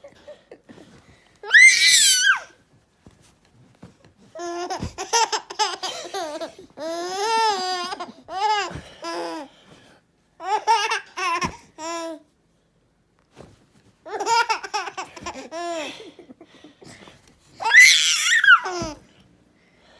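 Six-month-old baby laughing hysterically in bouts of quick, repeated laughs, with high-pitched shrieks of delight about a second and a half in and again near the end.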